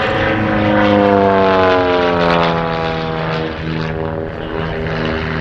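One Design single-engine aerobatic monoplane flying its display overhead: the drone of its piston engine and propeller falls in pitch over the first couple of seconds, then holds steady.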